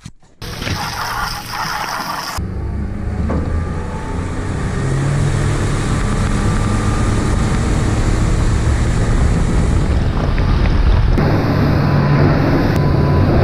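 Motorboat's engine running steadily at speed, with water rushing from the wake and wind.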